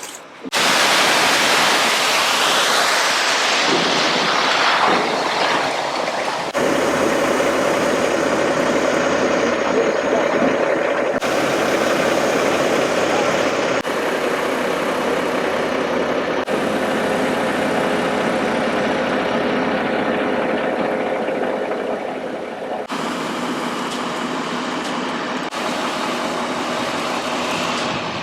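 Concrete mixer truck running steadily during a concrete pour, its engine and turning drum making a loud hum. The sound jumps abruptly in level and character several times.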